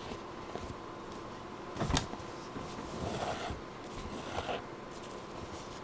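Hand needlework sounds of a needle and thread being worked through lace loops: a single sharp tick about two seconds in, then two brief scratchy rustles as the thread is drawn through.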